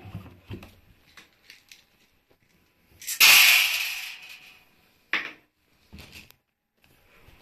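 Pink Lenor Unstoppables scent beads poured from their cap into the stainless steel drum of a front-loading washing machine: a loud rattling rush of beads hitting the steel, tailing off over about a second and a half. A sharp click follows, with light handling clicks before it.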